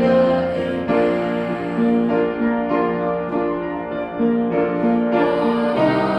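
Piano-led accompaniment of a worship song playing chords and a melody without singing; the arrangement grows fuller near the end.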